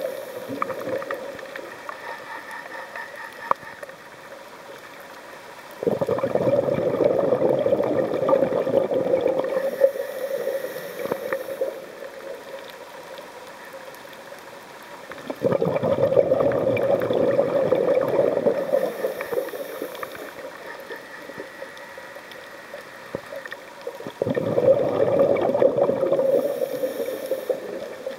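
A scuba diver's regulator breathing underwater: three bursts of bubbling exhaled air, each about four seconds long and about nine seconds apart, with faint clicking in the quieter stretches between.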